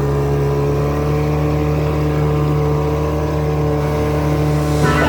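Small outboard motor on a Porta-Bote folding boat running steadily at a constant speed.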